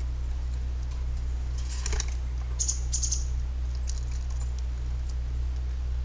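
Pileated woodpecker pecking at a perforated metal tube feeder: quick clusters of light clicking taps, thickest between about two and three and a half seconds in. A steady low hum runs under it.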